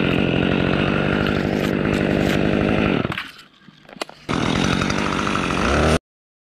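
Chainsaw running at high revs while cutting through cypress wood. The sound drops away about three seconds in, returns about a second later, and cuts off abruptly near the end.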